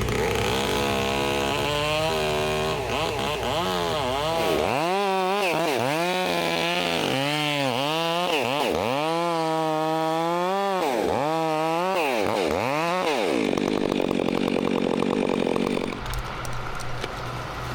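Gas chainsaw engine revving up and down repeatedly, then held at a steady high speed. It drops back to a lower, steady running note about sixteen seconds in.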